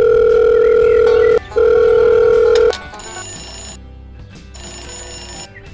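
Telephone ringing sound effect: a loud steady electronic tone, broken once by a short gap and stopping about three seconds in, then two quieter short spells of ringing over background music.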